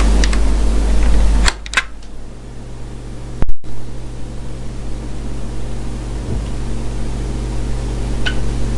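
Television switching on: a sudden loud hum and hiss, a few clicks in the first two seconds, a brief cut-out with a loud pop about three and a half seconds in, then a steady hiss over a low hum.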